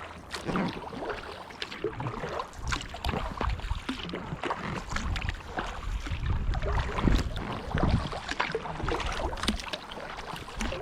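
Kayak paddle blades dipping and splashing in the water in an irregular series of strokes, with water dripping off the blades and a low wind rumble on the microphone.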